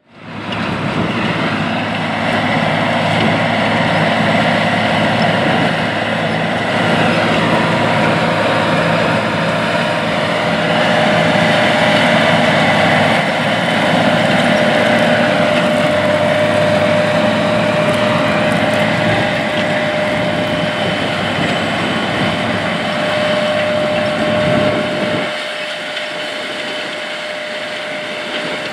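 John Deere 9410R four-wheel-drive tractor running under load while pulling a 24-row corn planter, the engine steady with a high whine above it. About 25 seconds in the low engine rumble drops away and the sound turns lighter, with the whine still there.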